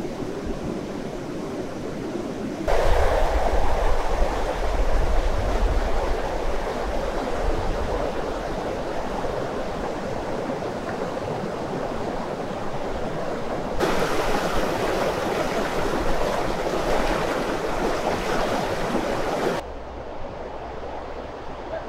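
Mountain river rushing over rocks: a steady whitewater rush that gets abruptly louder about three seconds in and drops suddenly near the end.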